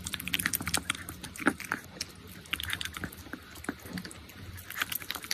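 Dog eating wet food off a spoon: close wet chewing, smacking and licking, in quick irregular clicks.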